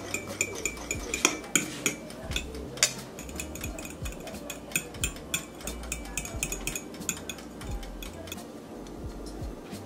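A metal fork clinking and scraping against a ceramic plate while stirring ketchup and mayonnaise together. The clicks come thick and fast for the first few seconds, then thin out.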